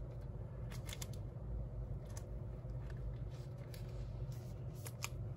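Trading cards and their plastic sleeves being handled: scattered light clicks and rustles over a steady low hum.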